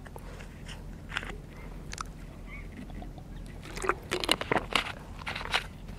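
A man drinking from a plastic water bottle and handling its screw cap: faint scattered clicks, then a run of small clicks and crinkles between about four and five and a half seconds in.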